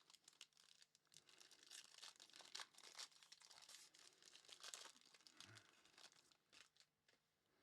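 Faint tearing and crinkling of a trading-card pack's foil wrapper as it is opened, in a run of short, irregular crackles.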